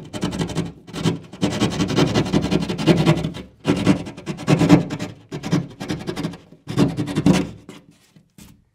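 Keyhole saw rasping back and forth through drywall to widen a round hole, in short strokes about one to two a second. The sawing stops shortly before the end.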